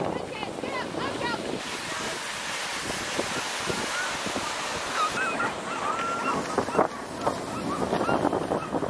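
Dog sled running over snow: a steady hiss of the runners and wind on the microphone, with short high yelping calls over it about a second in and again around the middle.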